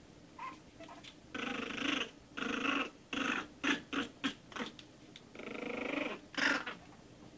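One-month-old Shih Tzu puppies growling in play as they wrestle: three longer rough growls of under a second each, with short yips in between.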